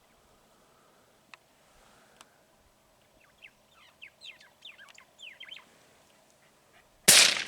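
A bird calling in a quick series of short, falling chirps, then a single loud rifle shot near the end.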